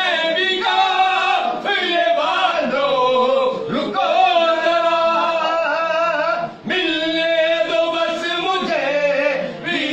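A man singing a naat, an Urdu devotional poem in praise of the Prophet, in long held, wavering notes, with a short pause between phrases about two-thirds of the way in.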